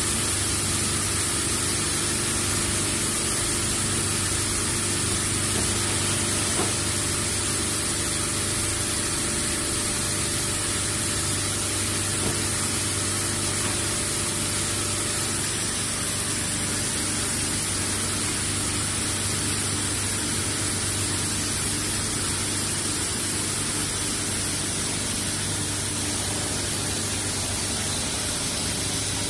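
Steady machinery noise of a running automatic bag-packing line: an even hiss over a constant low motor hum, with two faint knocks along the way.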